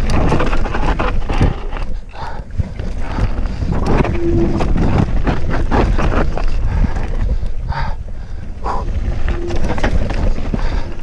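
Wind buffeting the microphone of a camera riding on a Cube Stereo full-suspension mountain bike going fast downhill. Under the rumble the bike rattles and clatters with the tyres on rough dirt and rock.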